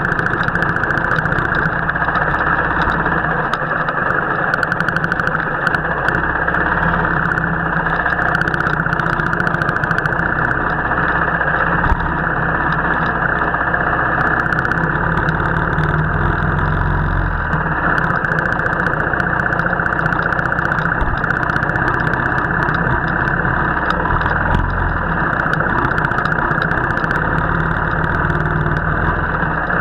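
Royal Enfield motorcycle's single-cylinder engine running steadily while riding, sounding dull and muffled.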